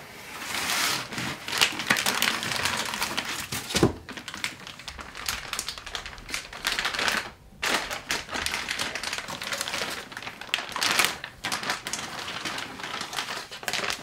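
Clear plastic bag crinkling and rustling as a microscope is lifted out of its cardboard box and unwrapped, with a dull thump about four seconds in.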